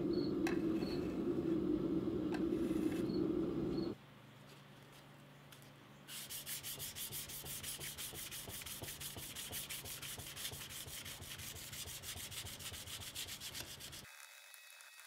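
For about the first four seconds, a steady low rumble with crickets chirping. After a short lull, a leaf-spring steel stiletto blade is hand-sanded with a sheet of sandpaper for about eight seconds, in quick, even back-and-forth strokes several a second.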